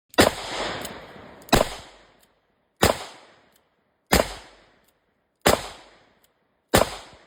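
Smith & Wesson Model 327 WR 9mm revolver firing six shots at an even pace, about one every 1.3 seconds. Each shot trails off in a ringing echo.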